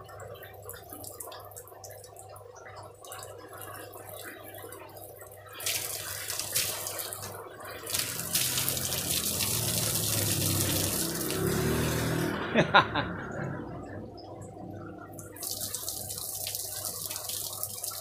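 A jet of water from a homemade pump, driven by a used washing-machine motor, spraying and splashing onto wet wooden planks over a low steady hum. The splashing starts about five and a half seconds in, dies away briefly after two sharp knocks about two-thirds of the way through, then comes back.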